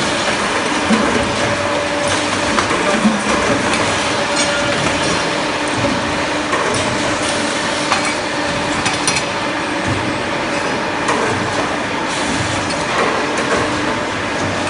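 CNC pipe bending machine running: a steady mechanical hum with a faint constant whine, and scattered light clicks and clatter.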